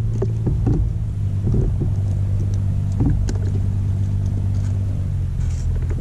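Boat engine running steadily, a constant low hum, with a few light clicks and knocks from handling fish and tackle on the deck.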